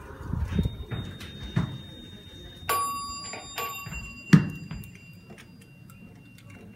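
An electronic elevator chime inside a ThyssenKrupp Dover traction elevator car: one pitched tone that starts sharply about a third of the way in and fades over about a second. Soft knocks and handling thumps come before it, and a single sharp thump, the loudest sound, follows about a second and a half later.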